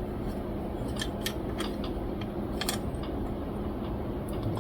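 Scattered light clicks and ticks as the small parts of an M.2 NVMe SSD and its PCIe adapter card are handled, over a steady low hum.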